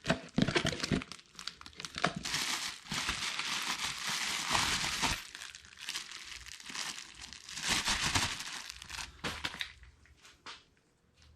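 Packaging crinkling and rustling in irregular bursts as a light pod and its hardware are unwrapped, dying down near the end.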